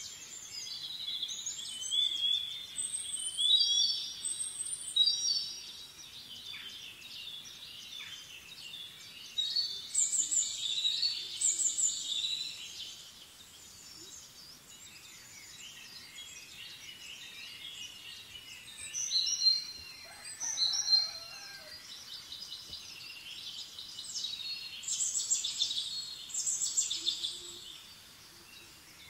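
Birds chirping and singing in several bouts of quick, high phrases, with short lulls between them.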